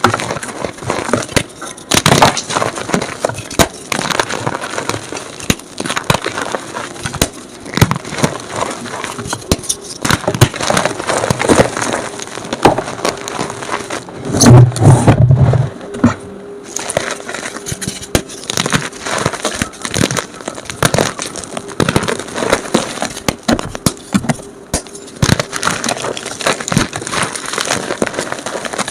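Gym chalk being crushed and crumbled by hand, sped up: a dense run of irregular crunches and crackles, with a louder, deeper crunch about halfway through.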